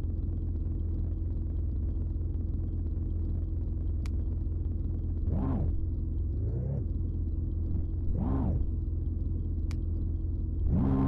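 Steady low engine rumble of heavy machinery. Three times a short whine rises and falls over it, and once a whine rises.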